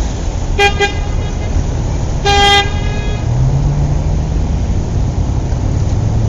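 Car sound effect: an engine rumbling throughout, two quick horn toots about half a second in and a longer honk a little after two seconds, then a steady engine hum.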